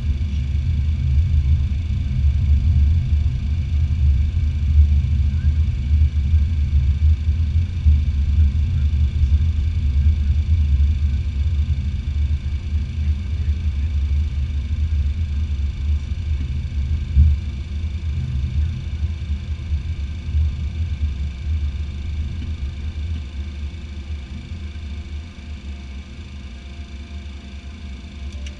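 Cabin sound of a Cessna Citation X taxiing, with its Rolls-Royce AE3007 turbofans at idle. A steady low rumble carries faint steady high whine tones, and it eases off gradually over the last several seconds as the jet slows.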